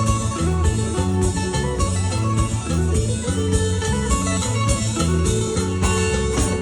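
Live band music: an instrumental passage with a plucked guitar melody over bass and a steady percussion beat, without singing.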